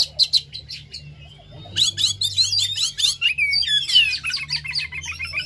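Oriental magpie-robin singing: a few sharp notes, then after a short pause a fast, dense run of varied whistles and chirps.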